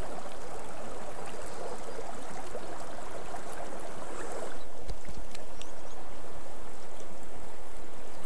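Small rocky river running over stones: a steady rush of flowing water. About halfway through, the rush changes tone and gets slightly louder.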